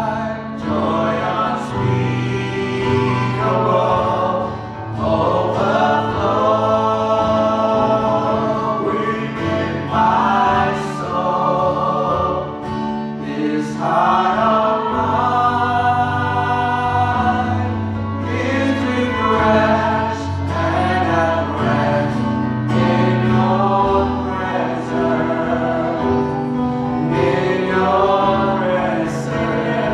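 A gospel worship song sung by a group of voices over steady instrumental backing with long held low notes.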